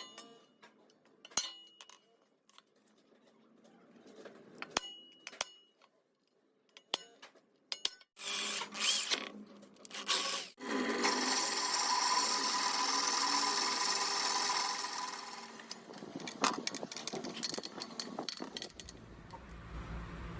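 Workshop handling noises: scattered clicks and knocks of metal parts and tools. About halfway through, a power tool starts and runs steadily for about five seconds, then stops.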